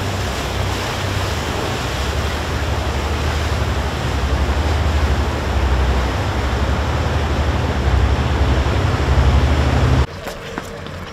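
Wind buffeting the microphone over the rush of a flooded river: a loud, steady roar with heavy low rumble that cuts off abruptly about ten seconds in.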